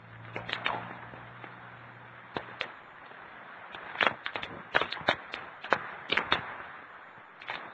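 Steady rush of typhoon wind and rain, broken by a string of irregular sharp cracks and snaps that come thickest around the middle. A low hum is present in the first couple of seconds.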